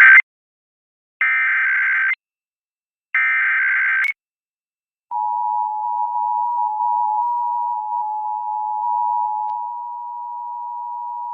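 Emergency Alert System test signal: the end of one SAME header data burst and two more one-second bursts of data tones, with short silent gaps between them. About five seconds in, the steady two-tone EAS attention signal (853 and 960 Hz) starts and holds.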